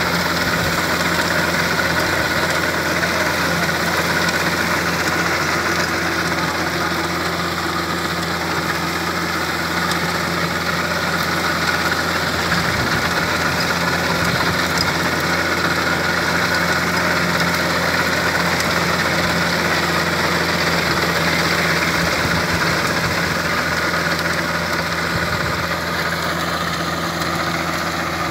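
VST Mitsubishi 27 HP compact diesel tractor running steadily under load as it drives a rotary tiller through the soil.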